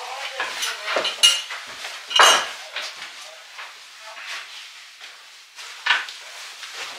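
Cutlery and dishes clinking and scraping, with a few sharper knocks, the loudest about two seconds in.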